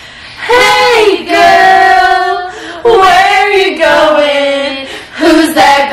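Young women singing loudly together, holding long notes with short breaks between phrases.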